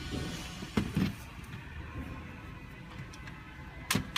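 Light knocks and clicks of a plastic camping lantern being handled: two knocks about a second in and a sharp click near the end.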